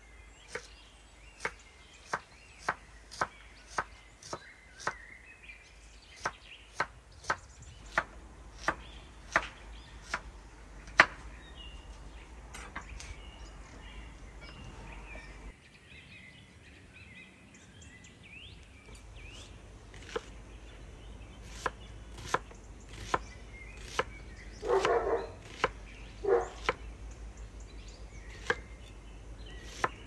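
Knife chopping food on a cutting board: sharp strokes at about two a second for the first ten seconds or so, then sparser strokes. Two short, louder sounds come near the end.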